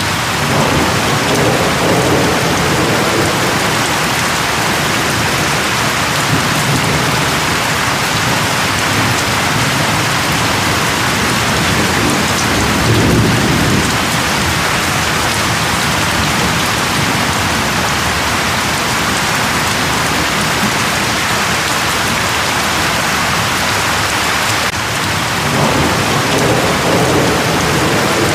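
Steady rain hissing down, with low thunder rumbling three times: about a second in, around thirteen seconds in, and again near the end.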